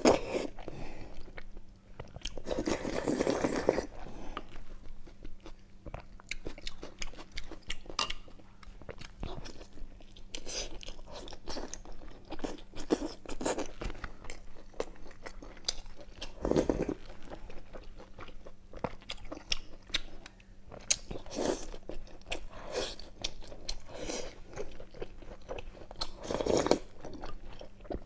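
Close-miked chewing of soft braised meat and broth-soaked rice, with many wet mouth clicks and lip smacks throughout and a few louder mouthfuls.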